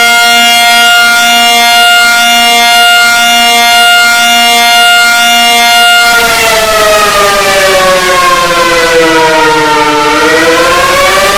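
Alarm siren: a loud steady pitched tone held for about six seconds, then sliding slowly down in pitch and back up near the end.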